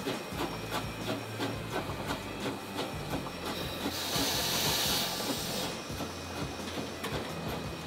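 Victorian Railways K-class steam locomotive K163 moving slowly, with a steady hiss of steam and light regular knocks. A louder, higher hiss of steam starts about four seconds in and lasts about two seconds.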